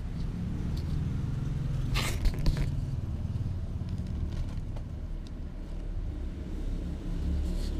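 Steady low rumble, with a brief scraping rustle about two seconds in.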